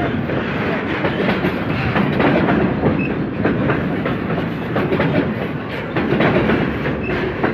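Freight train rolling past at close range, a steady loud rumble with the wheels clattering over the rails.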